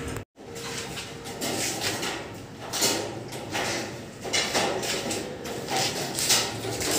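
Irregular rustling and scraping noises with a brief dropout just after the start.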